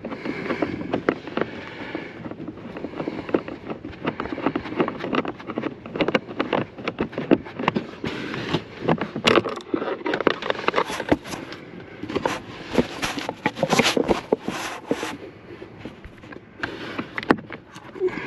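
Irregular plastic clicks, scrapes and rattles of hands and a screwdriver working at the blower motor module under the dash of a 2000 Jeep Grand Cherokee WJ, loosening it and pulling it and its wiring connector out of the HVAC housing. The clicking is busiest in the second half.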